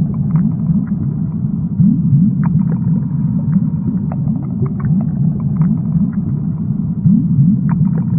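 Underwater rumble and gurgle of scuba divers' exhaled bubbles, a dense low sound full of quick rising warbles with scattered faint clicks.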